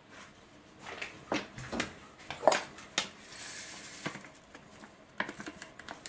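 Kitchen items being handled: a series of light knocks and clinks, the loudest about two and a half seconds in, with a short hiss about a second later.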